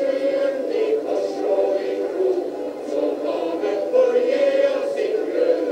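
Male voice choir singing in chorus, holding long, sustained chords.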